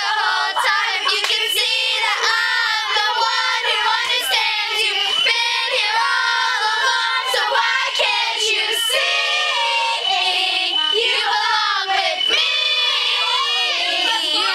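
Two girls singing a pop song together, their voices overlapping with wavering pitch.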